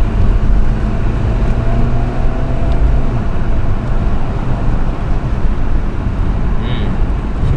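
Acura TSX wagon's K24 four-cylinder engine and road rumble heard from inside the cabin while driving. The engine note pulls with a slowly rising pitch for about the first three seconds, then gives way to a steady low road and tyre rumble.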